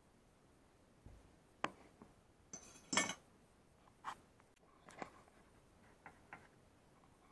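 Scattered light clicks and taps of a metal scribing compass and a plastic shower splash guard being handled while a pencil line is traced along trim, with one brief louder scrape about three seconds in.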